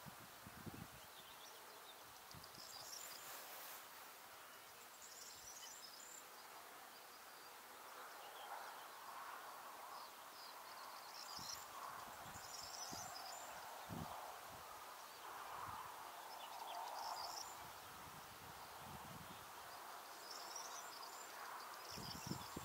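Faint outdoor ambience: a steady low hiss with brief, high-pitched bird chirps every two to three seconds.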